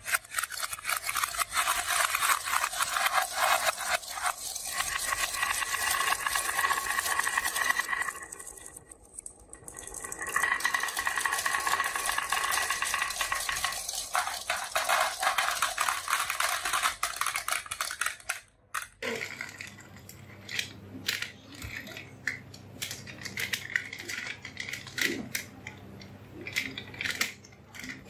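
Many marbles rolling and clattering down a wooden slope with popsicle-stick deflectors: a dense, continuous rattle of clicks that eases off briefly about a third of the way in and stops abruptly about two-thirds of the way through. After that come only scattered single clicks and knocks.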